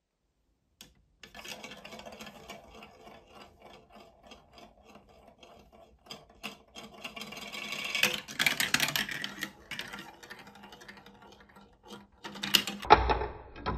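A plastic ball rolling and rattling through a plastic block marble run, circling around the funnels and clicking as it drops from piece to piece. It gets louder about two-thirds of the way through, with a sharp clack near the end.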